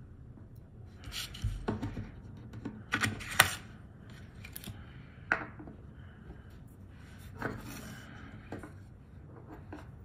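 Small metal hand tools clicking, tapping and scraping against a circuit board and workbench during hand soldering of a small component. The sounds come in scattered clusters, with a sharp tick as the loudest.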